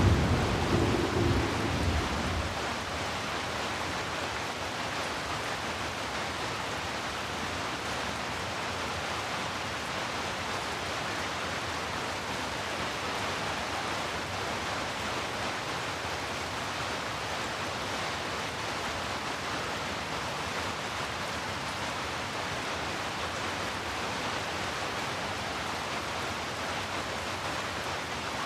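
Steady heavy rain, an even hiss, with the tail of a thunder rumble dying away in the first two seconds.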